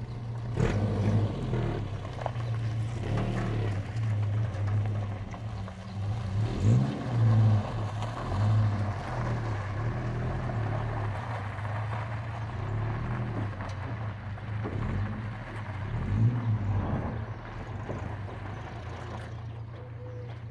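Toyota pickup engine running under load as it pulls a second Toyota pickup on a tow bar, driving off and slowly fading.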